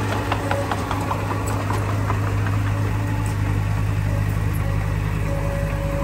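Komatsu D20P bulldozer's diesel engine running steadily, with a few light knocks in the first couple of seconds.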